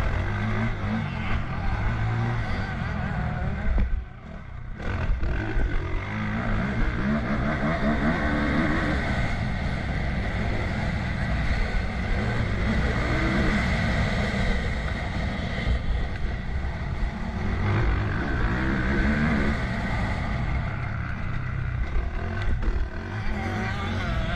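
Motocross bike engine revving up and down as the bike is ridden round a dirt track, heard from a camera mounted on the bike. The engine note drops away briefly about four seconds in, then picks up again.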